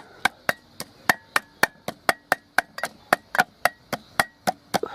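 Fresh ginger root being pounded to crush it, a steady run of sharp strikes about four a second.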